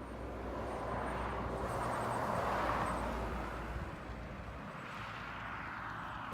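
A road vehicle passing by: engine and tyre noise swells to its loudest about two and a half seconds in, then fades away.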